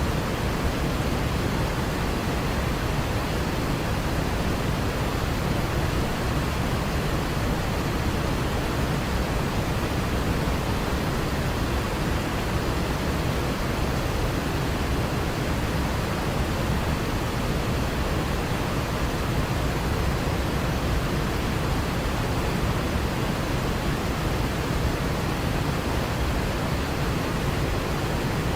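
Waterfall rushing: a steady, even roar, heaviest in the low end, with no change throughout.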